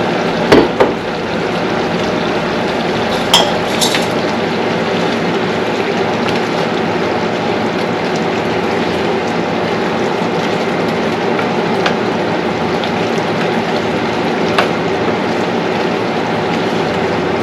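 A pot of menudo stew simmering and being stirred, with a steady bubbling hiss and a few sharp metal clinks of utensils against the pot, as rice flour is stirred in to thicken it.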